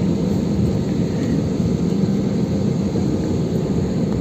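Airliner cabin noise while taxiing: the jet engines at low taxi power and the rolling airframe make a steady low rumble with a constant low hum, heard from inside the passenger cabin.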